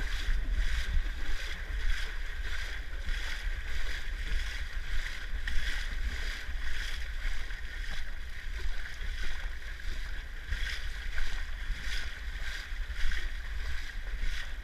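Someone wading through shallow seawater, a short splash with each step in a steady walking rhythm, over a steady low rumble.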